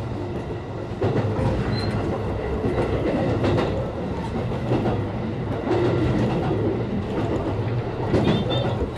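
JR West 223-series electric train running at about 57 km/h, heard from the driver's cab: a steady rumble of wheels and running gear, with irregular clacks as the wheels cross rail joints and pointwork. A brief high squeal near the end.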